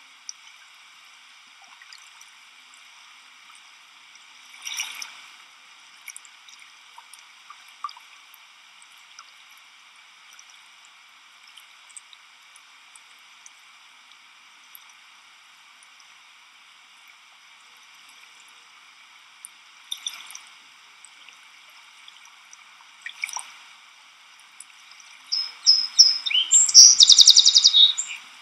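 Beavers moving and feeding in pond water, with a few brief soft splashes over a steady high hiss. Near the end comes the loudest sound, a rapid run of high chirps.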